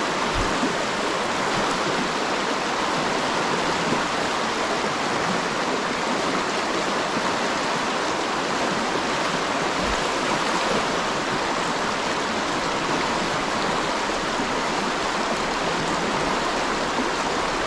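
Fast-flowing stream water rushing steadily over riffles, a constant even wash of noise.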